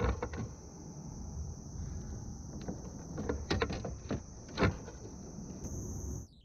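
Insects chirring steadily in the waterside trees, with several sharp knocks and thumps as a hooked fish is landed beside a kayak. The sound drops off suddenly near the end.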